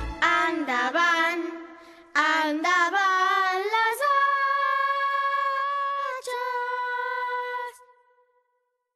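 An unaccompanied high singing voice sings a short wavering phrase, then holds one long steady note that stops about eight seconds in.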